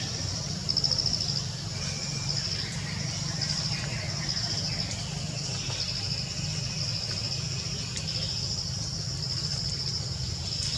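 Forest insects trilling in a high, rapid pulsing chorus, in phrases of about a second with short breaks between them, over a steady low rumble.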